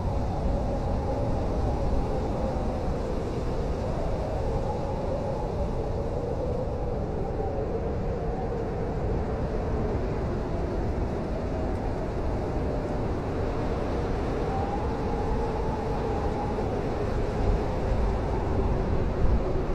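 Blizzard wind blowing steadily: a deep rumble with a wavering whistle that slowly rises and falls in pitch.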